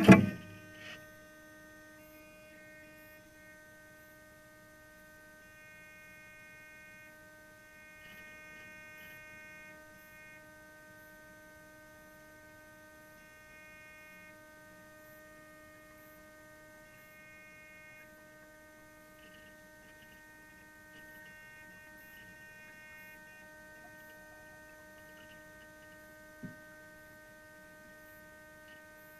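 Steady electronic hum of several even, unchanging tones, with fainter higher warbling tones that come and go over it. A loud thump right at the start and a single click near the end.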